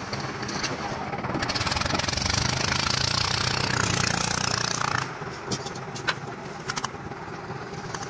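Engine of a one-bag concrete mixer with lift running as it winches the loaded concrete skip up the steel hoist tower. It is louder for a few seconds in the middle, then drops back, with a few sharp clanks near the end as the skip reaches the top and tips.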